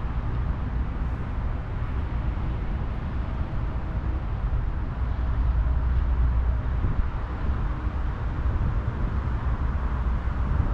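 Wind buffeting the microphone: a continuous, unsteady low rumble.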